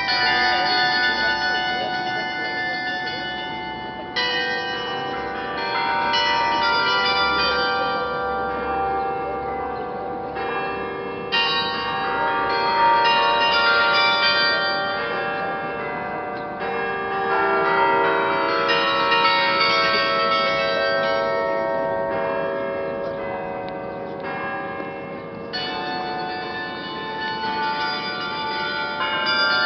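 Church bells ringing, many bells sounding together in long, overlapping tones. New strokes come in every several seconds.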